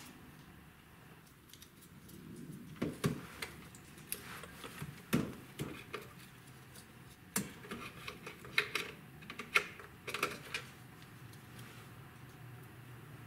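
Plastic clicks and rattles of wiring connectors being handled and plugged into a car radio head unit at the dashboard's radio slot. Irregular sharp clicks and knocks come between about three and ten seconds in.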